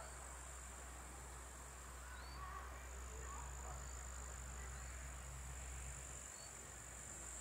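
Faint meadow ambience: a steady high-pitched insect chirring from the grass, with a few faint bird chirps over a low steady hum.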